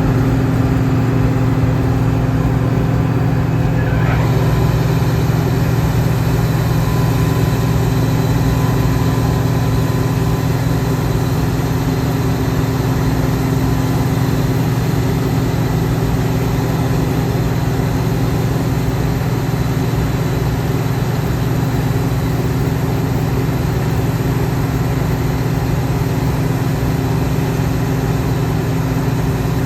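John Deere 2058 combine harvester running steadily, a constant engine and machinery drone with no change in speed.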